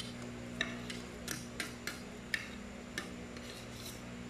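Spoons and forks clicking and scraping against plates as two people eat: about ten light, irregular clinks over a steady low hum.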